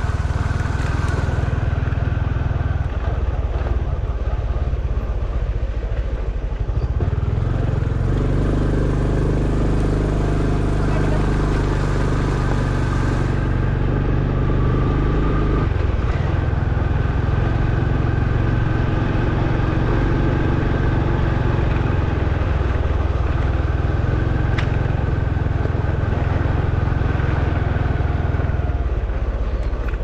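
Motorcycle engine running at a steady speed during a ride, under a heavy low rumble. Its pitched hum stands out more clearly for several seconds in the middle.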